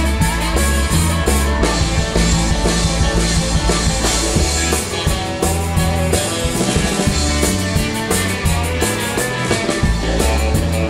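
Live rock and roll band playing an instrumental break: an electric guitar solo on a Stratocaster-style guitar over drums and bass, at a steady driving beat.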